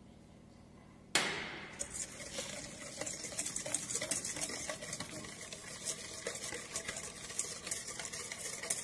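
Wire balloon whisk beating egg yolks and sugar by hand in a stainless steel bowl: a fast run of clicks and scrapes as the wires strike the bowl. It starts suddenly about a second in.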